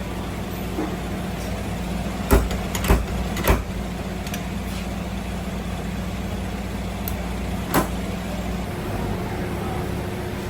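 Steady drone of an engine running, with three sharp knocks in quick succession about two seconds in and a fourth a few seconds later.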